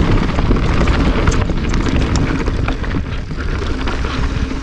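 Wind rumbling across the microphone of a mountain bike rider's camera, with the tyres rolling over a dry dirt trail and a few sharp rattles from the bike.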